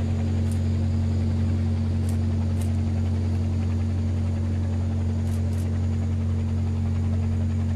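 Steady low hum of a patrol ship's engines and machinery while under way, with a few faint, short high ticks.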